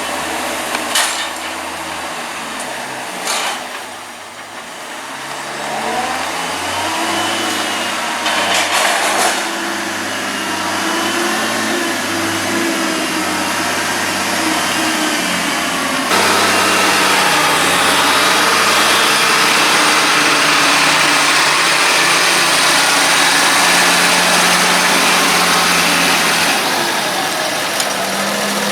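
Tractor engines running with changing revs and a few sharp knocks, the engine noise rising to a louder, steady run about halfway through.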